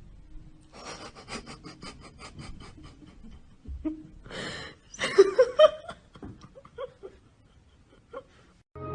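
A person laughing breathily: quick huffs at about four a second, then a louder burst of laughter about five seconds in.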